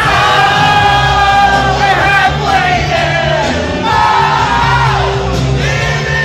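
Loud club music with a sung vocal over a steady bass line, with a crowd shouting and cheering over it.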